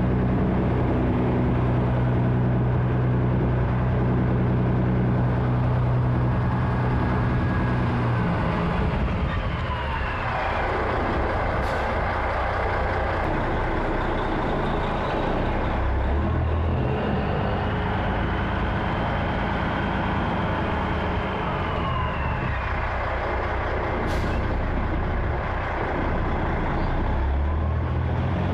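Peterbilt semi truck's diesel engine running at low speed while the rig backs up slowly: a steady engine hum for the first several seconds, then a rougher mix of engine and road noise with faint whining tones that rise and fall, and a couple of brief sharp clicks.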